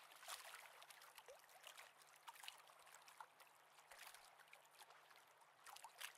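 Faint water lapping and trickling at a shoreline, with many small clicks and a low steady hum underneath.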